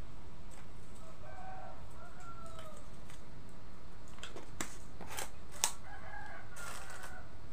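A rooster crowing twice, once about a second in and again near the end, with a few sharp clicks in between, the loudest about five and a half seconds in.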